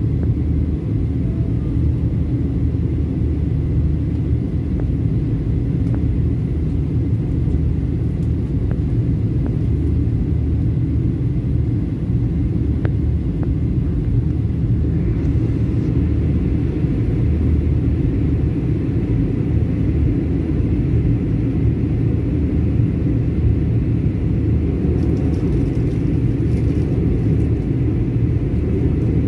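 Steady low rumble of airflow and CFM LEAP-1B engines heard inside the cabin of a Boeing 737 MAX 9 on approach, from a seat over the wing. About halfway through, a slightly brighter hiss joins the rumble.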